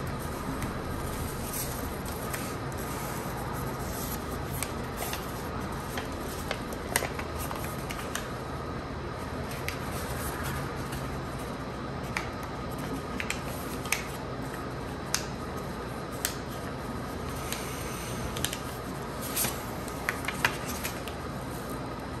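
A sheet of paper being folded and creased by hand into a paper airplane: soft rustling with scattered crisp crackles, more frequent in the second half, over a steady background hum.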